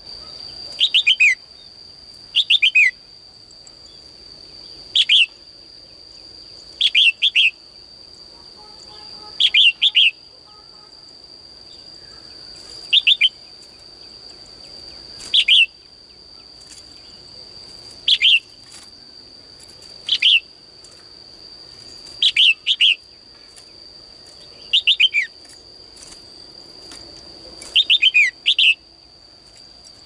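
Female red-whiskered bulbul calling: short, quickly falling chirps in clusters of two to four, repeated every two or three seconds. A steady high-pitched whine runs beneath them.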